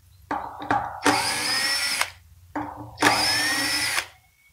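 Cordless drill/driver backing screws out of a metal cover: two runs of about a second each, the motor whine rising as it spins up, each run preceded by a few short trigger blips.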